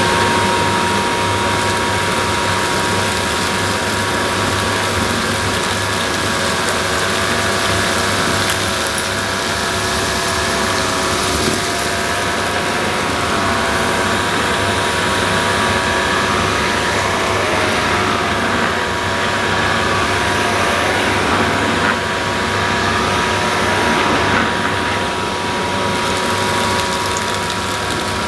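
Numatic Henry Hound cylinder vacuum cleaner running steadily with a steady whine, its Turbo Electric power head brushing across carpet to pick up dust and fluff.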